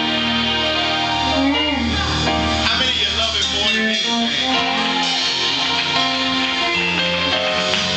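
Praise-and-worship band music with guitar, playing steadily.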